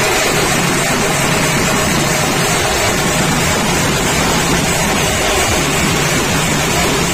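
Ghanta party din: many hand-held brass gongs and cymbals struck together with drums, heard as a loud, steady, unbroken wash of metallic noise.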